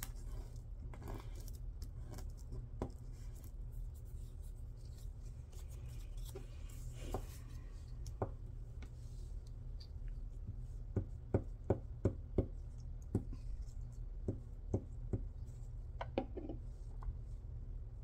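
Paper and fabric scraps being handled and pressed down by hand: soft rustling, then a quick run of sharp little clicks and taps in the second half, over a steady low hum.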